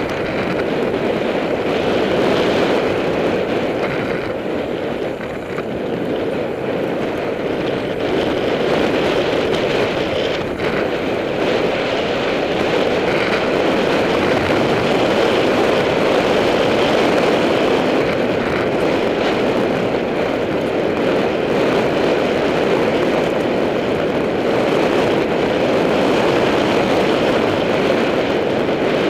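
Steady rush of wind over a bike-mounted camera's microphone as a mountain bike rides fast down a dirt track, mixed with the rumble of its tyres on the loose gravel.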